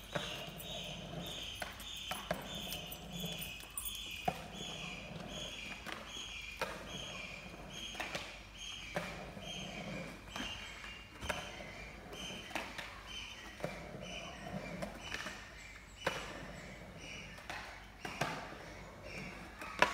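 A cicada singing in an even run of pulsing notes, two or three a second, the pitch sinking slowly. Sharp clacks of a skateboard on concrete ramps come every couple of seconds and are the loudest sounds.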